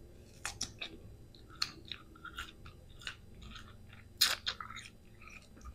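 Close-up chewing and biting of mango slices with bagoong: a string of crisp, wet crunches, the loudest about four seconds in.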